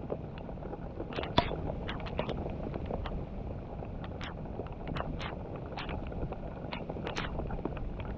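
Wind buffeting the microphone with a steady low rumble, with irregular sharp ticks and taps scattered through, a few each second.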